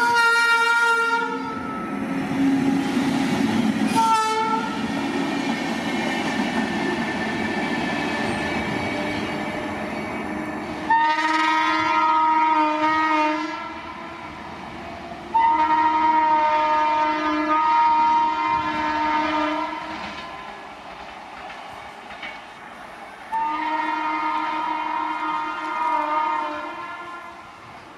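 A train's locomotive air horn blowing a chord of several tones: a blast at the start, a short one about four seconds in, then three long blasts of a few seconds each later on. Between the blasts comes the steady rush and clatter of the train running past.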